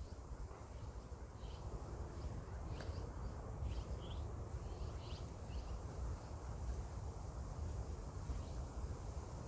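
Small birds chirping outdoors: short, high chirps come every second or so over a steady low background rumble.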